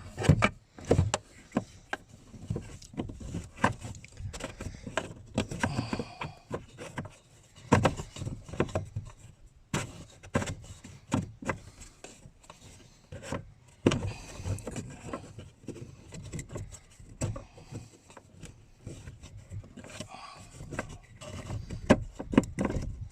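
Irregular clicks, knocks and rubbing of hands and tools working the retaining nut of an in-tank fuel pump, with a few sharper knocks scattered through as the nut is pressed and pushed into place.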